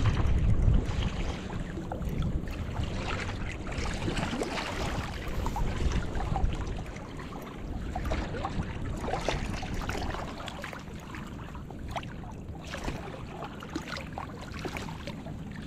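Wind buffeting the microphone loudly for about the first second, then steady rushing river water with many small scattered clicks and crackles.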